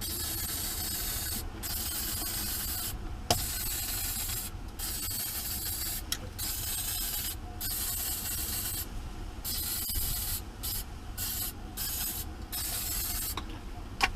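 An aerosol can spraying the new battery terminals, a long hiss broken by short pauses where the nozzle is let go, with a click about three seconds in.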